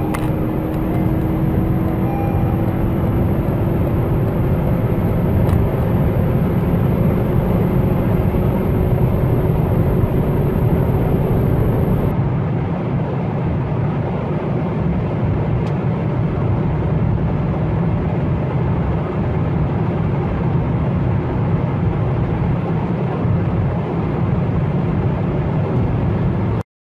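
Inside the cabin, a 2012 Honda Civic's 1.6 i-VTEC four-cylinder engine drones steadily under hard acceleration at high speed, with heavy road and wind noise. For the first twelve seconds or so, the sound of a 2011 Ford Focus 1.6 EcoBoost accelerating is mixed in, carrying a slowly rising tone, and then it drops out abruptly. The sound cuts off suddenly near the end.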